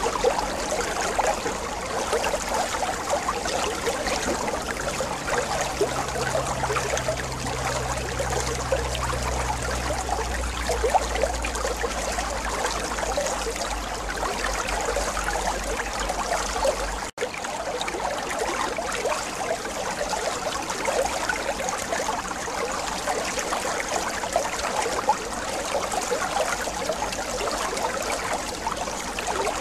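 Aquarium water trickling and bubbling from tank filtration and aeration, a steady crackling splash. A low hum runs under it for a stretch in the first half, and the sound drops out for an instant about two-thirds of the way through.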